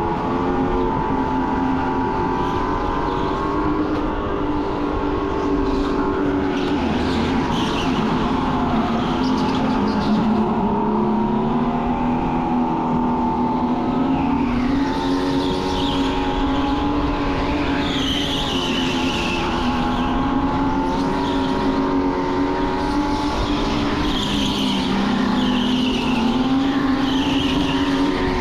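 Racing go-kart at speed, its motor drone rising and falling in pitch as it speeds up and slows through the lap. From about halfway through, the tyres squeal briefly in the corners.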